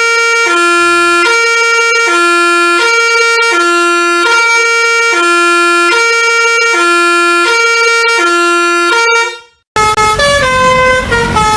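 Indonesian 'telolet' multi-tone bus horn playing a tune: two notes alternating, each held just under a second, over a steady high note, repeating. About nine and a half seconds in it cuts off, and a different falling horn tune starts over engine noise.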